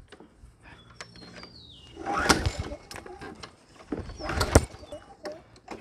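Toro push mower being pull-started: the recoil starter cord is yanked twice, about two seconds apart, each pull a short rough rush of sound.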